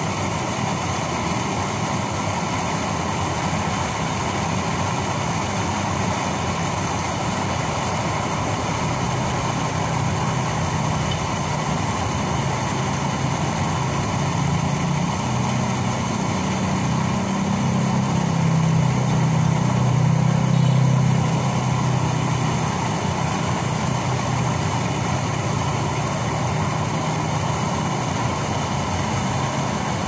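Steady rush of water at a weir or sluice, with a low engine hum that swells from about a third of the way in, is loudest past the middle and then eases off.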